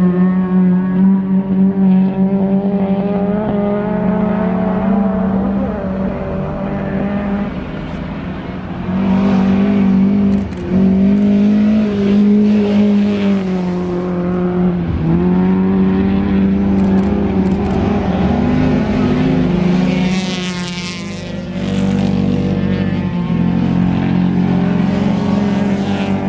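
Ice racing cars on studded tyres running hard around a frozen-lake track, engines held at high revs, their note rising and dipping several times, with sharp drops about ten and fifteen seconds in.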